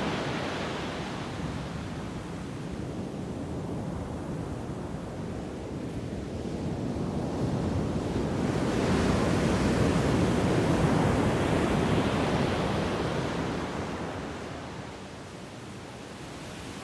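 Ocean waves washing onto a shore, one wave swelling up and breaking about nine seconds in, then receding.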